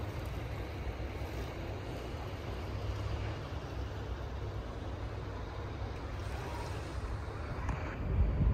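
Steady outdoor rumble and hiss, mostly wind buffeting the microphone, growing stronger and gustier near the end.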